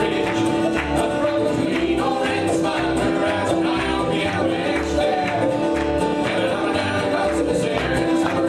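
A live band playing music with a steady beat and sustained chords.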